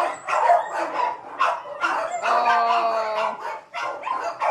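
Kennel dogs barking over and over, with one dog letting out a held, steady-pitched howl lasting about a second near the middle.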